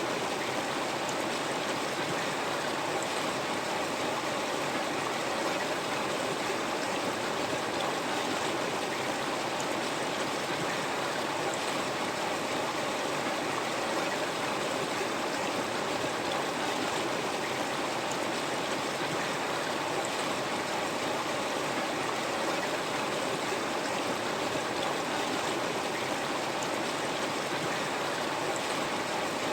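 A river flowing steadily, its water rushing and gurgling over rocks in an even, unbroken wash.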